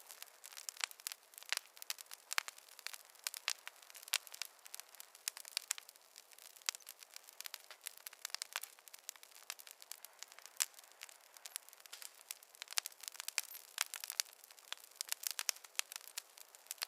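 Wood fire crackling in a fireplace: frequent, irregular sharp pops and snaps over a faint steady hiss.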